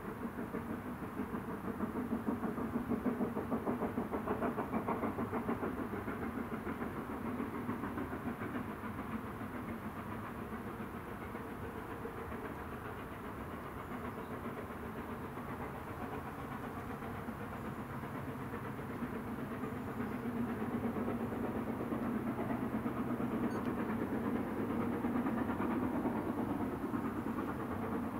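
Exhaust beats of GWR Castle Class 5043, a four-cylinder 4-6-0 steam locomotive, working hard on the climb to the summit of Hatton Bank and heard from a distance as a rapid, even beat. It swells early on, drops back a little midway and grows louder again near the end.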